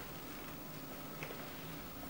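Faint ticks and rustles from a cat nosing into a cardboard tissue box and tugging at the paper tissues, the clearest tick about a second in, over a steady faint low hum.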